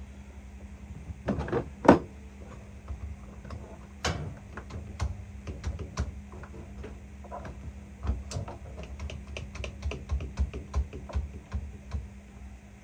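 Irregular clicks, knocks and clinks of tools and metal parts being handled inside a furnace cabinet, with one sharp knock about two seconds in and a quicker run of small clicks later on. A steady low hum sits underneath.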